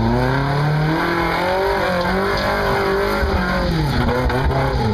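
Toyota pickup truck's engine revving hard under load as the truck climbs out of a deep mud rut. The revs rise over the first second, hold high and waver, then drop near the end.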